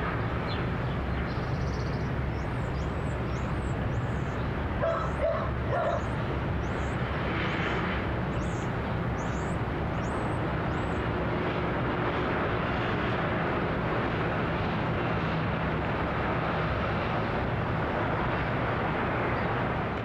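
Residential neighbourhood ambience: a steady wash of distant traffic with a low rumble. Short high chirps repeat about once a second in the first half, and a dog barks briefly about five seconds in.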